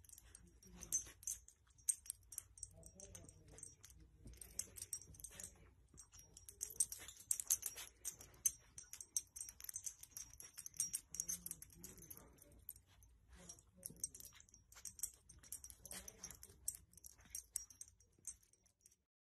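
Faint, irregular soft clicks and rustling of a small puppy nuzzling and sniffing at a baby's swaddling blanket.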